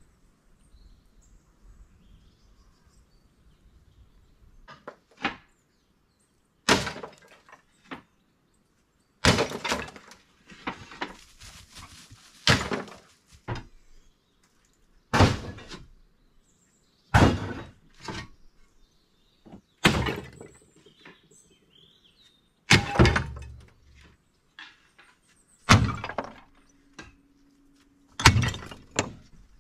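Old clay roof tiles crashing and breaking as they are thrown into a trailer, a sharp crash every second or two, starting about five seconds in.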